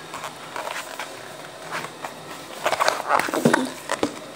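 Rustling and scattered clicks of a paperback school book being handled and moved right against the microphone, busiest just after halfway through.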